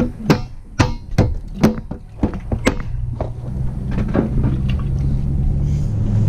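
A run of sharp knocks and clunks in the pickup truck's bed, then the truck's engine hum building steadily from about halfway through as the truck pulls away and drives along a dirt lane.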